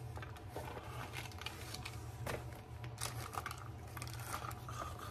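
Soft rustling and scattered light clicks of small items being handled and packed into a denim tote bag, over a low steady hum.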